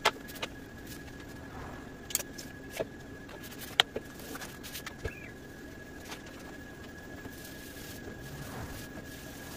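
Small scattered clicks and taps of hand tools and vinyl stencil being handled on a wooden cornhole board, the sharpest about four seconds in. Behind them is quiet workshop room tone with a faint steady high whine.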